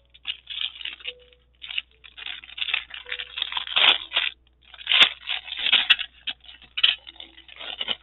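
Clear plastic bag crinkling and rustling in irregular bursts as it is opened and its contents pulled out, loudest about four and five seconds in.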